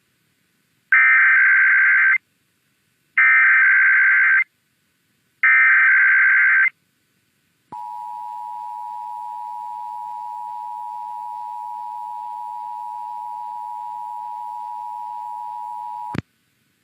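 Emergency Alert System alert header: three identical bursts of SAME digital data tones, each about a second long with a second's gap between them. Then comes the EAS two-tone attention signal (853 and 960 Hz sounded together), held steady for about eight seconds before it cuts off. Here it opens an IPAWS Required Weekly Test.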